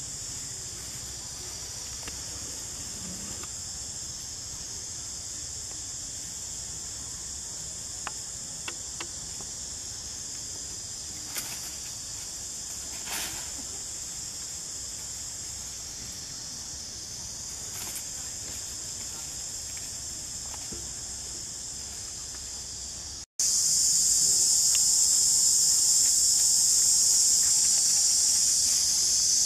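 Steady, high-pitched insect chorus with a few faint clicks. It drops out for an instant near the end and returns louder.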